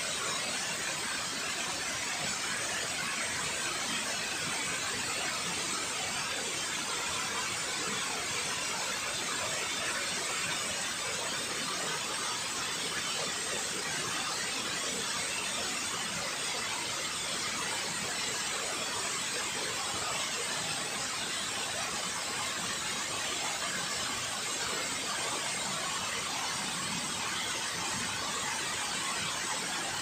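Steady rush of water pouring down a concrete dam spillway into the river, an even noise that does not change.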